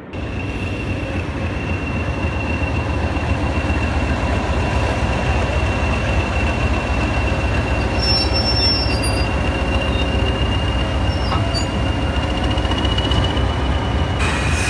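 Class 20 diesel locomotive's English Electric eight-cylinder turbocharged engine running steadily, a heavy low rumble with a steady high whistle over it.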